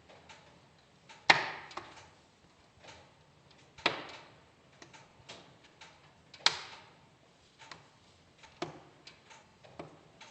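Wood fire crackling in a fireplace: irregular small crackles, with three louder sharp pops that each trail off briefly, about a second in, near four seconds and past six seconds.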